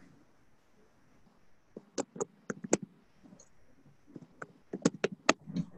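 Sharp clicks of computer keyboard keys and a mouse in two quick runs of typing, the first about two seconds in and the second near the end.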